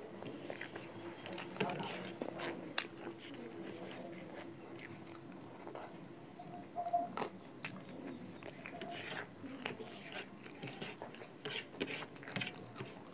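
Close-miked chewing of chicken curry eaten by hand: wet mouth sounds and lip smacks with many irregular small clicks.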